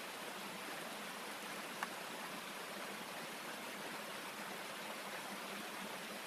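Small mountain stream rushing over rocks, a steady hiss of flowing water. A single sharp tap cuts through it about two seconds in.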